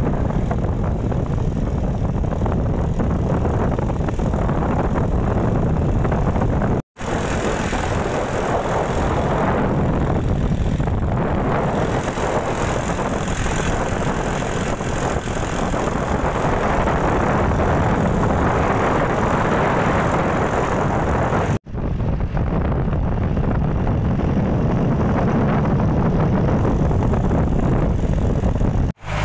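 A moving motor vehicle's engine and road noise, a steady dense rumble with the rush of travel, broken by two brief dropouts where the recording is cut.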